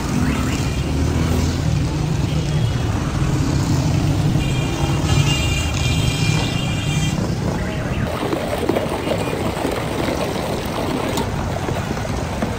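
Steady rumble of street traffic with music playing over it; between about four and seven seconds in, a few steady high tones sound.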